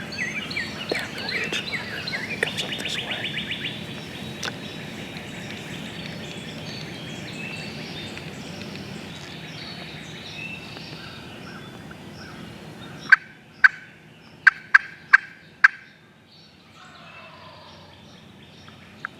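Wild turkey gobbling in the early morning, among chirping songbirds. Near the end comes a series of six sharp, loud calls.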